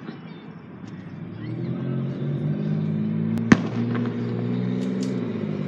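A single sharp bang of an aerial firework shell bursting about three and a half seconds in, over a low steady hum that swells up about a second and a half in.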